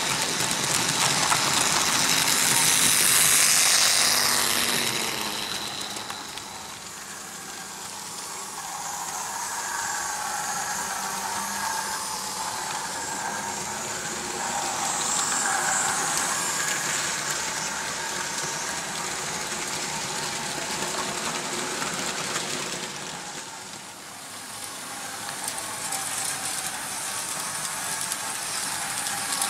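Märklin H0 model trains running on metal M-track: wheels rattling over the rails and locomotive motors whirring. Loudest about three seconds in, as a string of freight wagons passes close by, then quieter.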